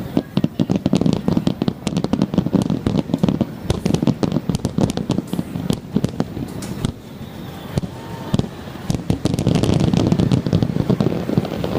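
Aerial fireworks display: a dense, continuous barrage of rapid bangs and crackles from exploding shells, thickening into an almost unbroken rumble near the end.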